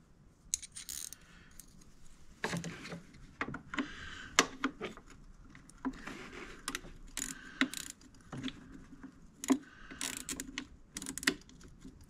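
Irregular metallic clicks and clinks from a 5/16 wrench worked on a utility screwdriver, turning the stuck brass main jet out of a Yamaha generator's carburetor.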